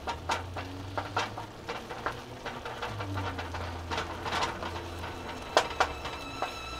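Ground turkey and chopped sweet potato sizzling and simmering in stock in a non-stick frying pan, with a wooden spoon stirring and scraping through it in irregular light clicks and knocks.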